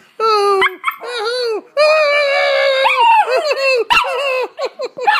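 Chiweeny (chihuahua–dachshund cross) puppy howling: long held howls, then a run of short rising-and-falling yips near the end, with a single knock about four seconds in.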